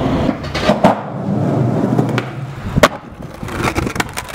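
Skateboard wheels rolling over rough asphalt, with sharp cracks of the board, the loudest just before three seconds in, as a street trick fails and the skater bails.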